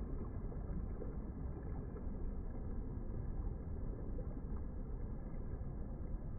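Steady low rumbling noise with no clear tone, strongest in the bass.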